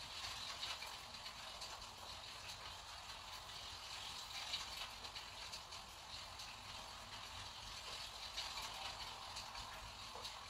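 Fine paintbrush bristles dabbing and scratching on rough 300 g watercolour paper while painting small pine shapes: a faint, continuous dry rasp with many small ticks.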